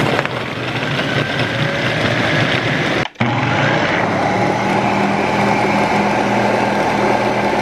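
A 1,500-watt Ninja blender running at full power, churning frozen Mountain Dew. It starts suddenly, cuts out for a moment about three seconds in, then runs on with a steadier tone.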